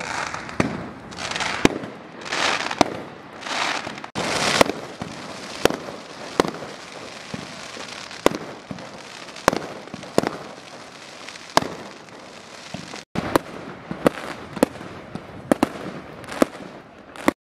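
Aerial fireworks going off: a string of sharp bangs from bursting shells, roughly one a second. Several rushing hisses swell and fade in the first few seconds. The sound drops out briefly once and cuts off just before the end.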